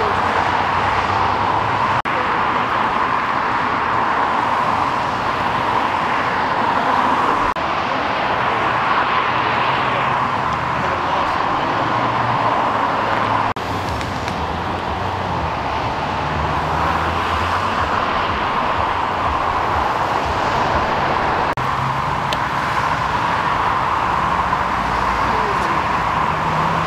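Steady freeway traffic noise: the tyre and engine roar of vehicles passing close by, with a low engine hum underneath.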